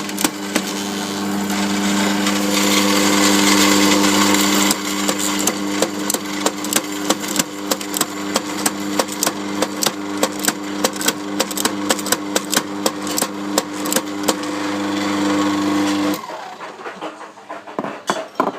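La Cimbali Cadet coffee grinder running with a steady motor hum and sharp clicks, about three a second. A louder noisy grinding stretch comes in the first few seconds. The motor cuts off about 16 seconds in.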